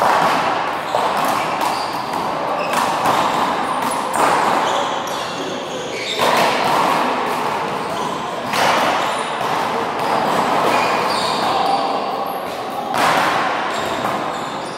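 Rubber handball smacking against the wall and bouncing on the floor, sharp repeated smacks ringing in a large echoing hall, with voices mixed in.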